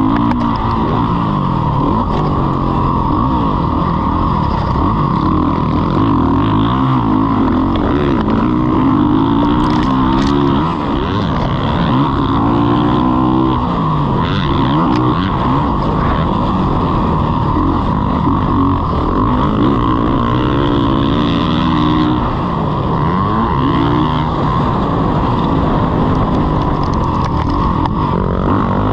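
Motocross bike engine, loud and close, revving up and dropping back again and again as the bike accelerates, shifts and slows around a dirt track.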